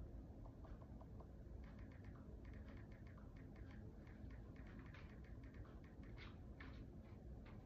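Faint, irregular finger taps and clicks, several a second: typing on a device to look up a Bible passage, over a low steady room hum.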